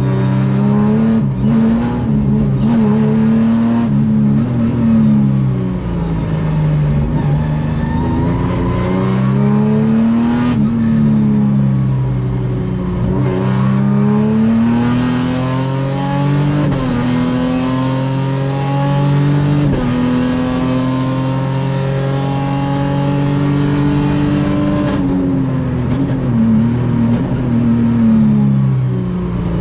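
A race car's V6 engine heard from inside the cockpit at racing speed. The revs climb and fall again and again with gear changes and braking, and hold nearly steady for several seconds in the middle.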